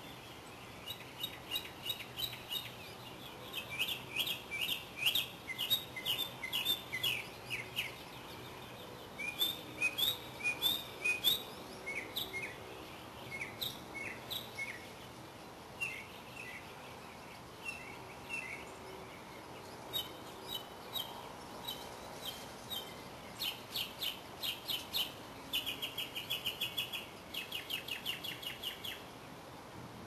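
Small songbirds chirping: quick runs of short, high chirps that come in groups lasting a few seconds, with short pauses between them.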